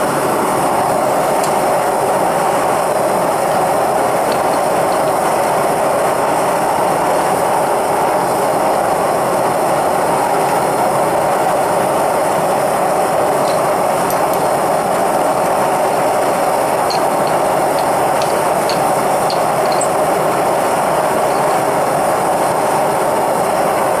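Propane-fired furnace burner running steadily, a loud even rush of gas flame with no change in level. A few faint light ticks sound about two-thirds of the way in.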